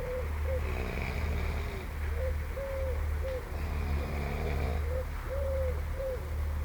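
A person snoring in a tent, a rasping snore on each in-breath about every three seconds, over a steady low hum. Between the snores a dove coos in short phrases of about three notes, the middle one longest.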